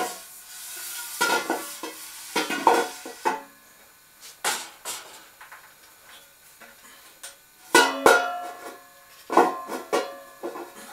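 A thin-wall stainless steel tube clanking and ringing as it is worked into place between metal crankcases. It gives a string of irregular knocks, each leaving a bright metallic ring that hangs on briefly, with the loudest pair about eight seconds in.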